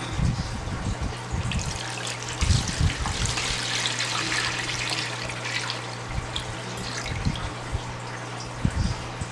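Hot water poured from a jug into a plastic basin, a splashing stream that is strongest about halfway through and then tails off. A few low thumps from the jug and basin being handled.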